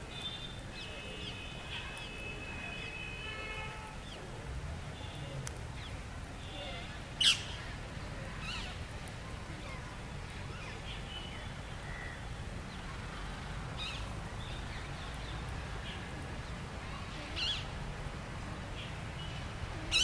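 Rose-ringed parakeets calling: short, sharp screeches, the loudest about seven seconds in and others near the end, with softer chirps in the first few seconds over steady background noise.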